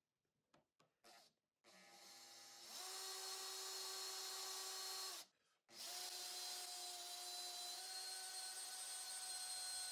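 Handheld power drill boring into a metal rod clamped in a vise. After a few light clicks the drill spins up and runs with a steady whine, stops for about half a second a little past halfway, then starts again and keeps drilling.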